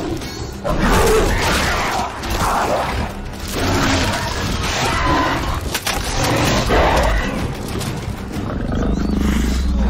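Film soundtrack: a big cat growling and snarling in repeated loud swells over tense background music.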